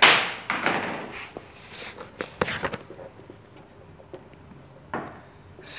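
Handling noises at a whiteboard: a sudden scraping rub, then a scatter of light knocks and clicks, and a marker touching and writing on the board.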